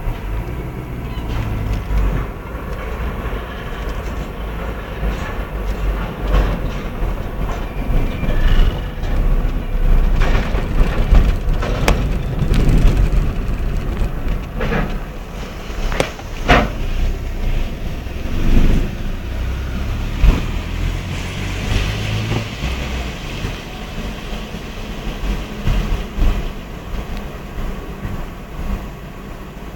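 Car driving slowly up a steel loading ramp and along a ferry's car deck, heard from inside the car: a steady low rumble with scattered sharp knocks and clanks, easing off in the last few seconds.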